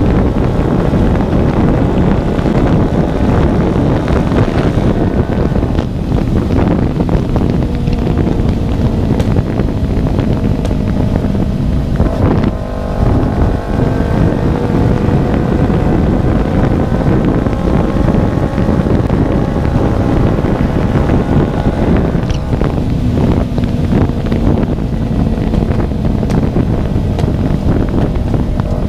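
Kawasaki Ninja 250 FI parallel-twin engine running with no exhaust fitted, open and loud while riding, with wind rushing over the microphone. Its note climbs steadily through the middle as the bike accelerates, after a brief dip in level a little before halfway.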